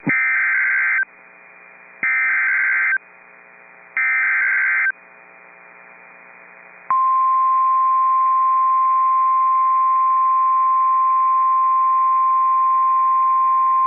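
Three one-second bursts of Emergency Alert System SAME header data tones, a harsh digital warble, come about two seconds apart. Roughly two seconds after the last burst, the NOAA Weather Radio 1050 Hz warning alarm tone starts and holds one steady pitch. Together they announce a severe thunderstorm warning.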